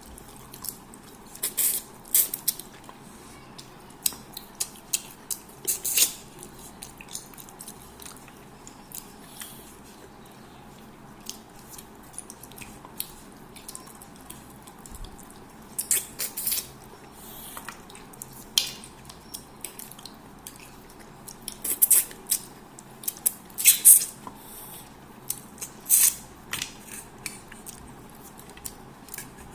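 Close-up eating sounds: irregular wet mouth clicks and smacks while chewing fish head curry with rice.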